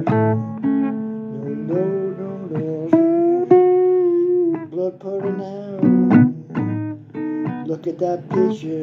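Blues guitar playing an instrumental passage between sung lines: plucked acoustic guitar notes with string bends and a few strummed chords.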